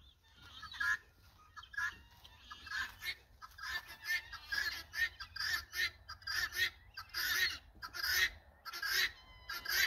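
Birds calling outdoors: a run of short, repeated calls, often several a second, starting about a second in.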